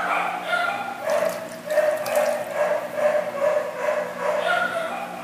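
A puppy whimpering and yipping in a run of short, high cries while it is rubbed dry with a towel, with some brief rubbing noise from the towel about a second in.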